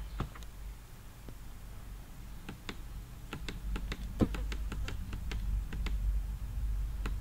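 Scattered sharp clicks and taps at a computer, coming thicker in the middle, with one louder knock about four seconds in, over a low steady hum.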